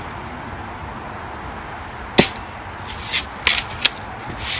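Daisy Red Ryder lever-action BB gun being worked and fired: a single sharp snap about two seconds in, then a quicker run of three or four clicks and snaps from the spring-air action and lever near the end.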